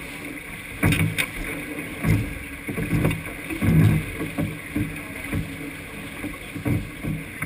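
Sailboat beating through chop: a steady rush of water along the hull, broken by irregular low thumps as the hull meets the waves.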